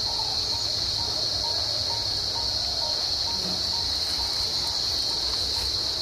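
Steady, high-pitched insect chorus drone, with a faint short note repeating a few times a second beneath it and a low rumble underneath.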